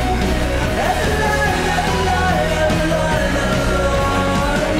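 Background song with a sung vocal over a steady low bass line.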